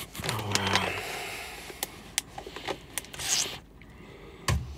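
Handling noise from a bag of coffee beans: rustling, scraping and small clicks, with a short sniff about three seconds in and a soft knock near the end.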